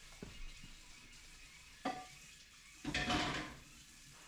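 Metal cooking pots and lids clanking on the stovetop: a couple of light knocks, then a louder ringing clatter about three seconds in.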